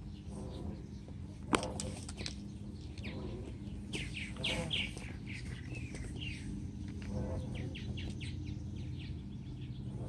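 Birds chirping: quick series of short, high chirps, each falling in pitch, over a steady low hum. A single sharp click comes about a second and a half in.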